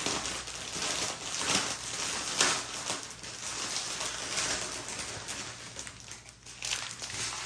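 Clear plastic packaging crinkling in irregular rustles as hands work open the bag holding the strands of diamond-painting drill bags.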